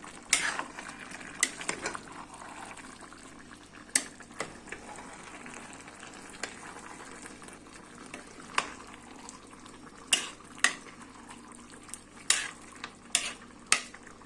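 Rice for plov being stirred in a pot: scattered sharp clinks and scrapes of the utensil against the pot, over a steady sizzle from the cooking contents.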